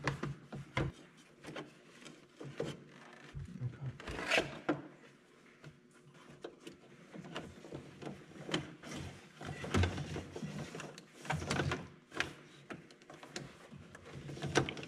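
Irregular clicks, taps and knocks of hands handling a plastic joystick cover and working wiring inside the opened joystick housing, with a louder scrape about four seconds in.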